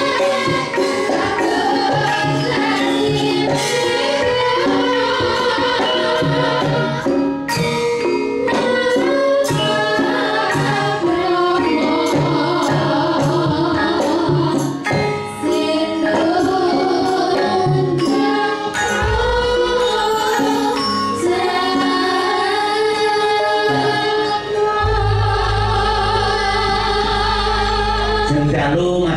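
Javanese gamelan music with singing, a man's voice through a microphone among the singers, over frequent sharp drum and metal strokes. Deep sustained low notes come in about two-thirds of the way through and again near the end.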